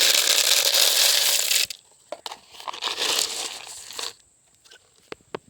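Dry shelled corn being poured into feed bowls: two rushes of rattling, crackling kernels of about two seconds each, then a few light clicks near the end.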